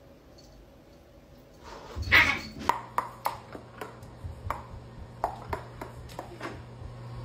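A short, loud noisy burst about two seconds in, then a dog moving on a tiled floor: about a dozen sharp, slightly ringing clicks at an uneven pace over a low steady hum.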